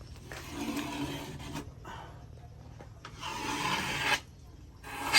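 Two rasping, scraping strokes, each about a second long, with a short pause between them.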